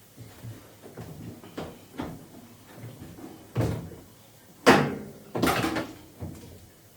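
Hard knocks and clattering from handling washing machine parts during a spring replacement: several light knocks, then two loud bangs about two-thirds of the way through, the second a short rattling clatter.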